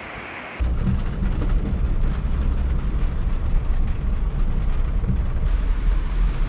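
Rushing floodwater for a moment, then, from about half a second in, a loud, steady low rumble of a car driving, heard from inside the cabin.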